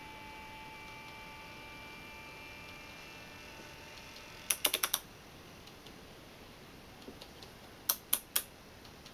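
Model train motor driven by a homemade PWM controller, giving off a steady high whine of several tones that fades out about halfway through. Then comes a quick run of four or five sharp clicks, a few faint ticks, and three more sharp clicks near the end.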